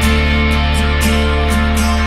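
Background music: plucked guitar over a sustained bass, with a steady beat.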